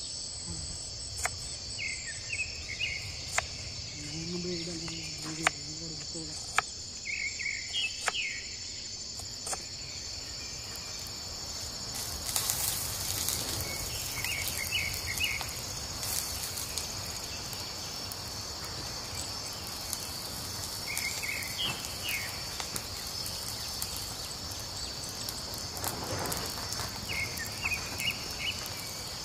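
A steady, high-pitched chorus of insects, with a bird repeating a short chirping call every few seconds. In the first several seconds a knife knocks sharply on a wooden board as shallots are sliced; later a wood fire crackles.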